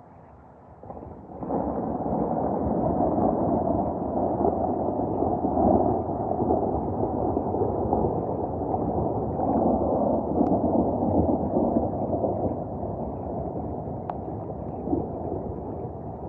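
Thunder: a long rumbling peal that breaks in suddenly about a second in and rolls on, swelling and easing, for the rest of the time.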